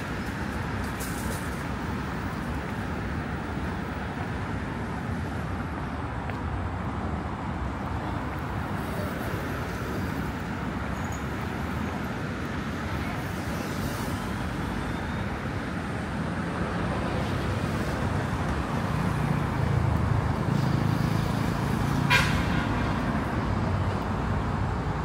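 Steady road traffic noise, growing louder as a vehicle passes close by about twenty seconds in, with a single sharp click a moment later.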